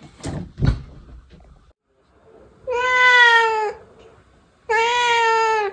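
Domestic cat meowing twice, two long drawn-out meows about a second each that drop slightly at the end. Two short thumps come before them near the start.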